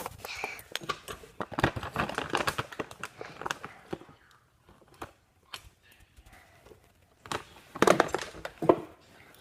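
Crinkling and tearing of a plastic package being handled, with scattered sharp clicks and knocks. It stops for a few seconds, then louder handling sounds return near the end.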